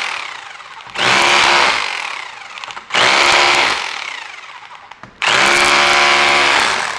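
Dongcheng rotary hammer in chisel mode, its flat chisel bit hammering into a concrete block. There are three bursts of about a second and a half each, and the motor winds down after each one.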